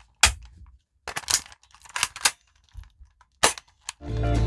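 Toy M4-style rifle firing irregular single shots: about six short, sharp cracks over three and a half seconds. Guitar music comes in near the end.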